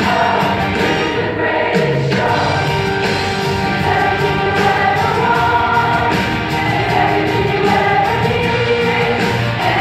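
A large high school chorus singing together, many voices at once, in a stage musical number.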